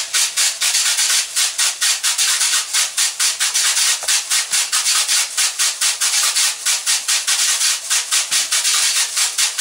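A pair of handmade seed-filled shaker rattles being shaken in a quick, even rhythm of about six strokes a second, each stroke a sharp, hissing rattle of seeds.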